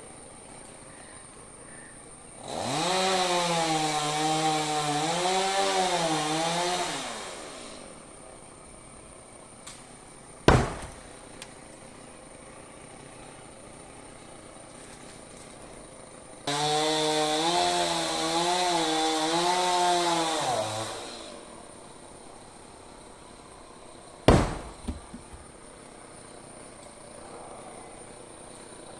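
Chainsaw run in two bursts of about five and four seconds, its pitch wavering as it cuts. A few seconds after each burst comes a single sharp impact, louder than the saw.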